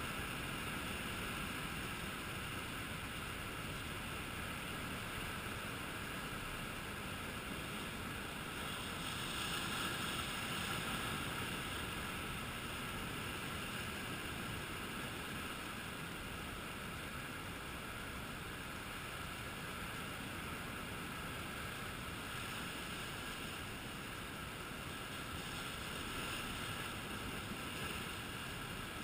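Sea surf washing over the rocks with wind on the microphone: a steady rush of noise that swells a little twice.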